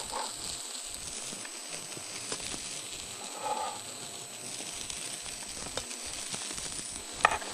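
Knife cutting a crisp, browned flatbread on a wooden board: light knocks and clicks over a steady faint hiss, with one sharper click near the end.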